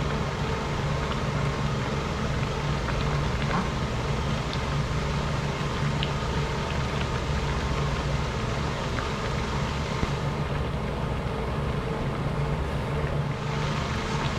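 Steady low mechanical hum with an even rushing noise beside a pot of fish stew cooking on the stove, with a few faint clicks of utensils against the pot.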